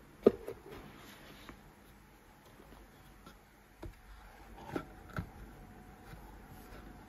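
Cardboard packaging boxes handled by hand: a sharp knock about a third of a second in as a box is set down or bumped, then a few lighter taps and knocks as the boxes are moved and turned.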